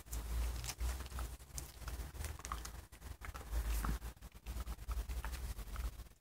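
Welsh terrier puppies shuffling and scratching on the cardboard floor of a box: irregular light taps and rustles over a low rumble.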